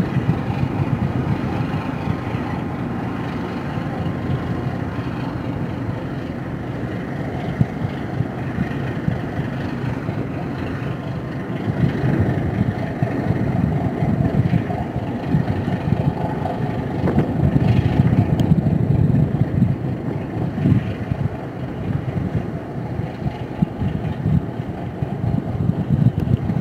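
Low, steady rumble of a purse-seine fishing vessel's engine as it motors out, with wind buffeting the microphone.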